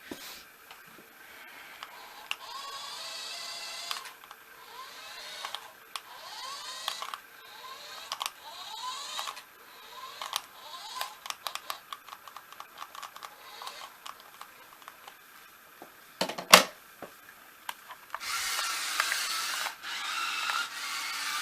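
Toy remote-control cars' small electric motors whirring in short bursts that rise and fall in pitch, with many small plastic clicks and a single loud knock about two-thirds of the way in. Near the end a louder, steady whirr takes over.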